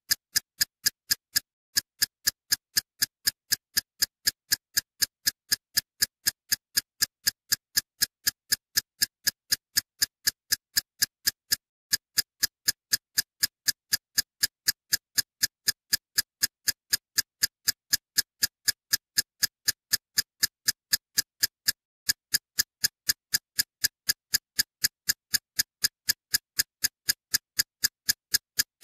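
A steady run of sharp, evenly spaced ticks, about three a second, with a short break about every ten seconds: a looped ticking backing track.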